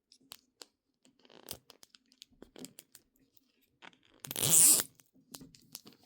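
Plastic wrapping on a Mini Brands package being picked at and handled, with small scattered crinkles and clicks, then torn with one loud rip about four seconds in.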